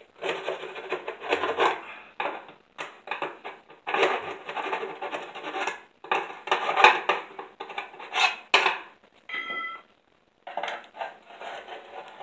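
A metal tool scraping and clinking along an aluminum sliding-door track in a series of irregular strokes, digging out old caked grease and wax.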